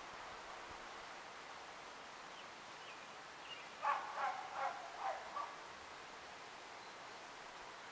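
An animal calling in the background: about five short calls in quick succession around the middle, over a steady outdoor hiss.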